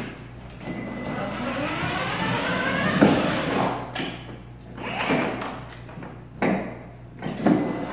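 Electric drive motors of a kids' ride-on Jeep Wrangler whining up in pitch in several short starts as it is driven, with a knock about three seconds in.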